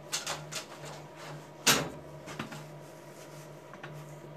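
A few quick clicks and knocks, then one sharp, loud knock about one and a half seconds in and a few fainter clicks after it, over a faint low hum.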